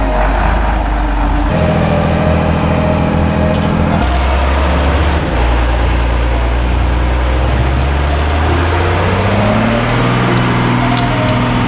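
Unimog 406's six-cylinder diesel engine working under load as the truck crawls through a muddy creek and up a steep bank. Its revs climb about nine seconds in and begin to drop back near the end.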